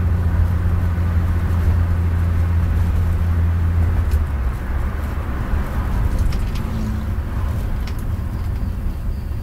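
Ford Maverick six-cylinder engine running with a steady low hum over a wash of road or rain noise. About four seconds in, the hum eases and drops lower.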